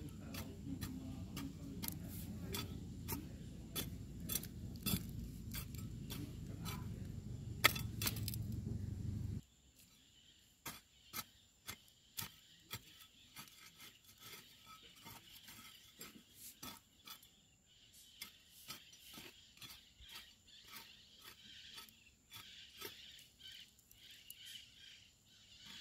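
Mattock (grubbing hoe) blade chopping into and scraping loose garden soil, irregular strikes about once or twice a second, as the soil is loosened around seedlings. A low rumble underlies the first third and cuts off suddenly about nine seconds in.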